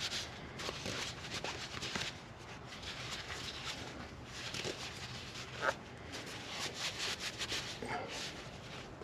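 Repeated hand scrubbing or rubbing strokes, several a second, in uneven runs, with a short high squeak about halfway through.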